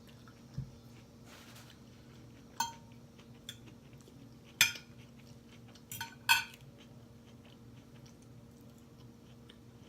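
Utensils clinking against a plate or bowl during a meal: a handful of sharp clinks, some ringing briefly, over a faint steady hum.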